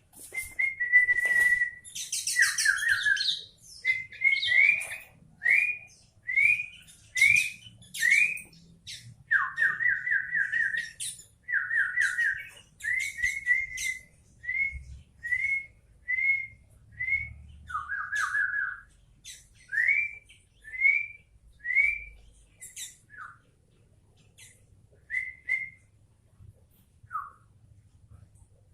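Sooty-headed bulbul (kutilang) singing: a long run of short clear rising whistles, with quick runs of repeated notes and a brief higher chatter about two seconds in. The song thins to a few scattered notes near the end.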